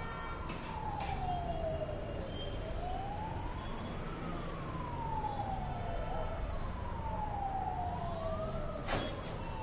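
A siren wailing, its pitch rising and falling slowly about twice. Against it come a few sharp clicks of a knife on a cutting board, the loudest near the end.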